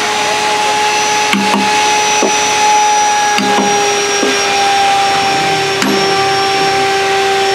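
A motor-driven machine running with a steady drone throughout, over which a wooden mallet strikes a wood-carving chisel about seven times at irregular intervals, sharp knocks as the chisel cuts into the wood.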